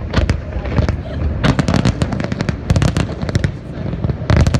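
Fireworks finale: a dense barrage of shell bursts, many sharp cracks in quick succession over a continuous low booming rumble. The cracks come thickest from about a second and a half in, and again near the end.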